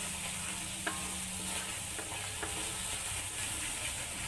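Ground chilli paste sizzling in oil in a metal wok while a wooden spatula stirs and scrapes through it, with a couple of light knocks. The paste is being fried until the oil separates from it.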